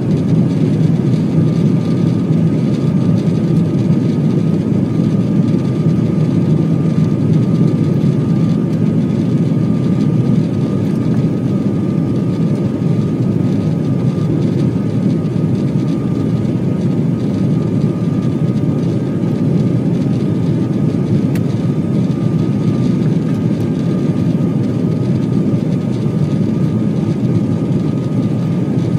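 Airliner cabin noise on the landing approach: a steady engine rumble and rush of air with a thin, steady whine above it.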